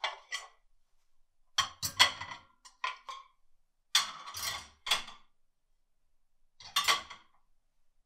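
Ceramic plates and cutlery clinking as dishes are put away, plates set into a wire plate rack. It comes in about five separate bursts of clatter, some with a dull knock.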